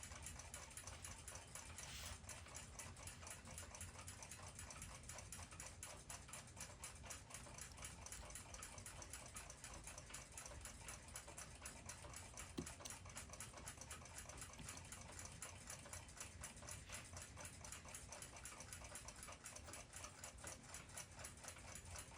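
Faint, fast, even ticking of a mechanical clock movement's escapement, with a single sharper click about twelve seconds in.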